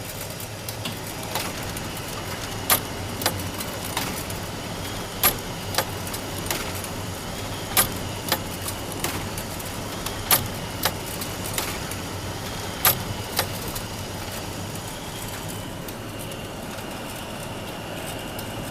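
Office photocopier running with a steady whirring hum and a faint high whine. A sharp clack comes about every two and a half seconds, with lighter clicks between. The clacks stop about two-thirds of the way through, and the machine keeps humming.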